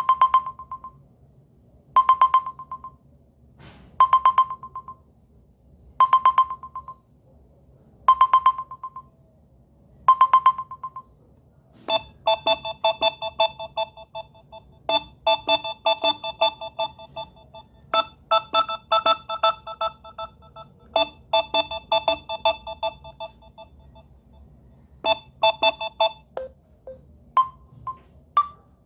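Samsung Galaxy A20s phone ringtones. First a short electronic ringtone, a quick run of notes ending on one high tone, repeats six times two seconds apart; about twelve seconds in a different ringtone starts, a bouncing melody of several-note chords that runs for about fourteen seconds and trails off into a few scattered notes.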